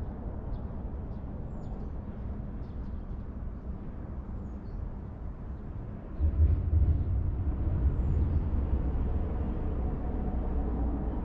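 Outdoor ambience: a steady low rumble that grows louder about six seconds in, with faint, scattered high chirps.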